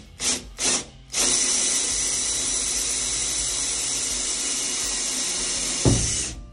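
Cordless drill boring a hole through the aluminium wall of a camper shell: three short squeezes of the trigger, then about five seconds of steady, high-pitched drilling, ending with a thump as it stops.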